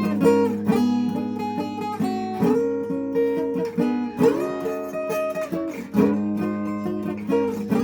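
Acoustic guitar playing chords, with new chords struck every half second or so and notes ringing on between them.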